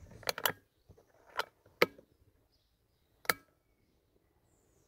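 A handful of short, sharp clicks or knocks: a quick pair at the start, two more a second or so later, and a last one after about three seconds, then near quiet.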